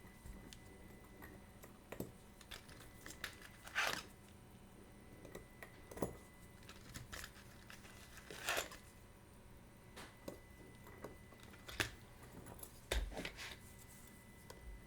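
Scattered light clicks and a few brief rustles from small tools and parts handled at a watch repair bench, with quiet stretches between.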